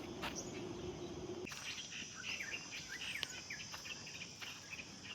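Insects buzzing in a steady high drone, with short bird chirps over it, all faint. For about the first second and a half, before it changes abruptly to this, there is only a low steady hum.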